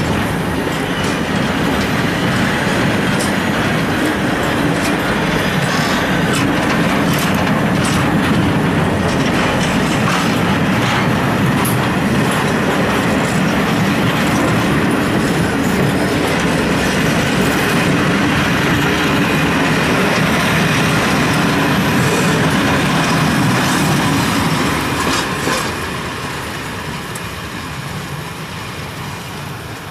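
A freight train's open-top wagons roll past at close range, their wheels rumbling on the track with many sharp clicks. About 25 seconds in the last wagon passes, and the sound fades as the train draws away.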